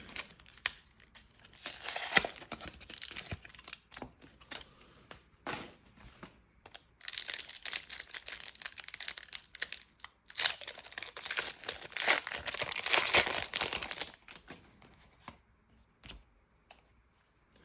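Pokémon card booster pack packaging being torn open and crinkled by hand, in bursts of tearing and crinkling. There is a short burst about two seconds in and two longer stretches in the middle, then it goes quiet near the end.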